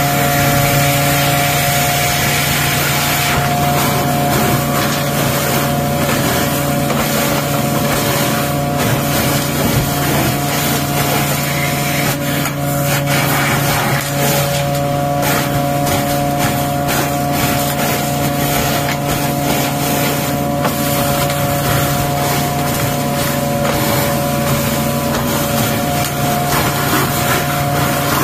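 Engine-driven water jetter running steadily, a constant hum under a dense hiss, as its high-pressure water sprays and splashes down into a catch basin.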